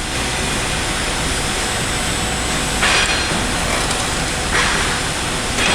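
CNC bender working 1.5-inch solid steel bar amid factory machinery: a steady mechanical drone with a low hum. Three short hisses come about three seconds in, again a second and a half later, and once more near the end.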